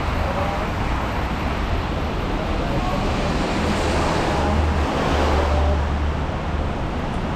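Rainy street ambience: a steady hiss over a low rumble, swelling about four to six seconds in as a vehicle passes on the wet road, its tyres hissing, then easing again.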